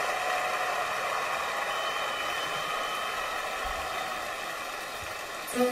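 A steady, even hiss with faint held tones in it, slowly fading. String music starts right at the end.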